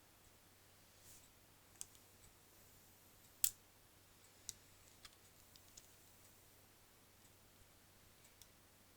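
A few faint, irregular clicks over quiet room tone, the loudest about three and a half seconds in.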